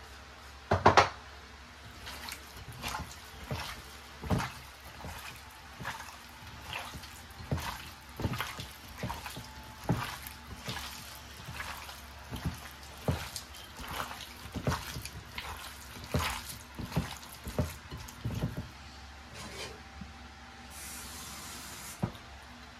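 Kitchen food-preparation sounds: a loud knock about a second in, then irregular sharp taps and knocks about one a second, with a short hiss near the end.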